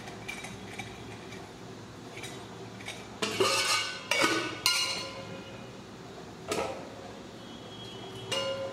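Stainless-steel kitchen vessels clanking as they are handled and set down: a handful of short ringing metal knocks, three close together near the middle and two more spaced out toward the end.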